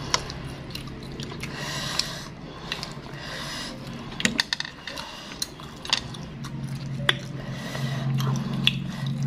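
Close-up mukbang eating of sausages wrapped in fried wonton skin and coated in chili sauce: wet, squishy chewing and mouth smacks, with sharp clicks scattered throughout, over a low steady hum.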